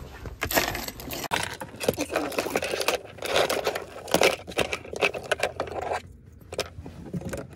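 Coins clinking and loose items rustling as a hand rummages through a car's centre-console tray for change, in a dense run of small irregular clicks with a short lull about six seconds in.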